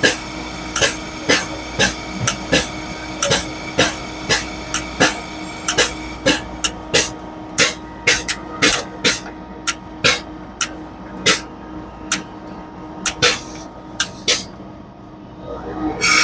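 FBD Slurpee machine running during barrel filling: a steady hum with irregular sharp clicks and pops, about two or three a second. A loud hiss starts at the very end.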